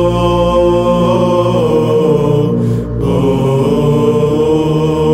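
Byzantine chant sung by a group of male chanters, drawing out the word 'σωθήναι' in a long melisma over a steady low held drone (the ison). There is a short breath break about three seconds in before the melody resumes.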